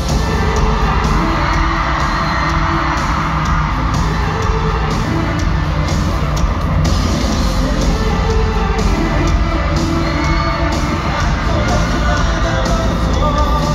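Pop band playing live in an arena, loud and steady, with the crowd cheering and whooping along.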